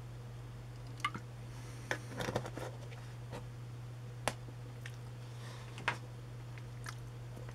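Scattered light clicks and knocks from handling a plastic drinking-yogurt bottle after pouring, with a short cluster of them about two seconds in, over a steady low hum.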